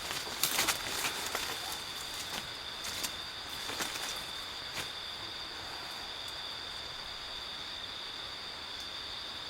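Steady high-pitched insect chorus, with a run of short crackles and snaps in the first half that die away after about five seconds.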